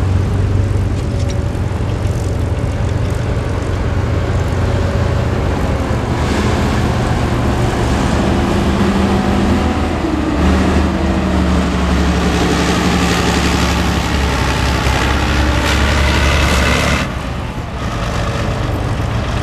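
SA-8 Gecko (9K33 Osa) six-wheeled air-defence vehicle's diesel engine running as it drives. The engine pulls harder from about halfway through, then eases off abruptly near the end before picking up again.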